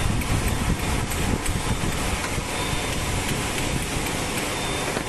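Production-line machinery running with a steady, even rumble and faint light ticking.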